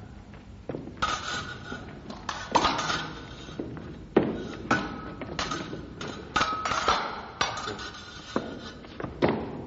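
Fencing blades striking one another in a dozen or so irregular clashes, several leaving a short metallic ring, mixed with thuds that fit feet stamping on the floor.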